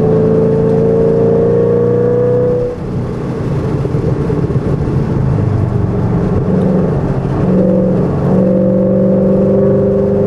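Shelby GT500's V8 engine heard from inside the cabin on track, rising in pitch under throttle, then lifting off about three seconds in. It comes back on the throttle near the end, holding a steady note.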